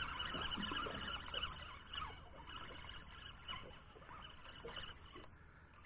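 Faint water lapping against a small boat's hull on calm sea, with small irregular plinks and gurgles, growing quieter toward the end.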